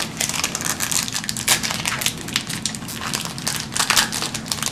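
Wrapper of a 2007 Topps TX Exclusive football card pack crinkling and crackling in a fast, irregular run as it is worked open by hand. It is a stubborn pack that won't tear open easily.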